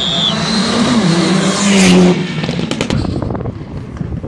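Rally car engine at high revs as the car approaches and passes close by, loudest about two seconds in, then dropping away suddenly, followed by a few sharp cracks.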